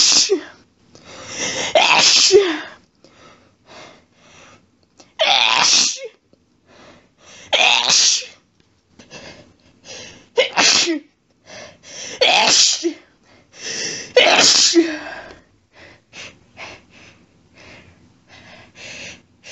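A woman's allergic sneezing fit: about six loud, wet sneezes, two to three seconds apart, each with a falling voiced tail. Quick, breathy hitching breaths fill the gaps between them.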